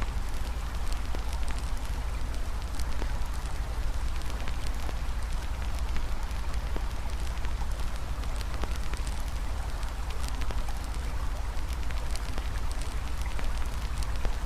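Campfire crackling with frequent small, irregular pops over the steady rush of a flowing river.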